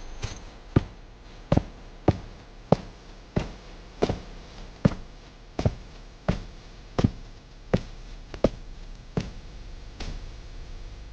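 Slow, evenly paced footsteps of hard soles striking a hard floor, about three steps every two seconds, stopping near the end.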